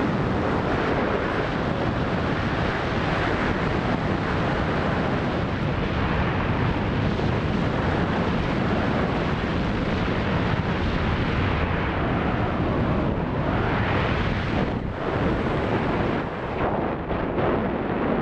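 Steady rush of airflow buffeting the microphone in flight under a paraglider, easing briefly a few times near the end.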